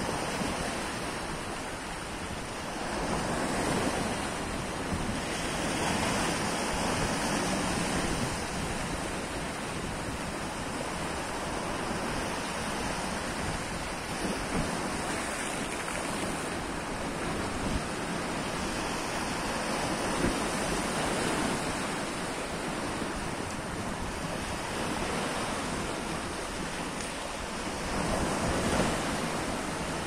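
Sea waves washing and splashing against a stone sea wall, surging in swells every few seconds, with wind buffeting the microphone.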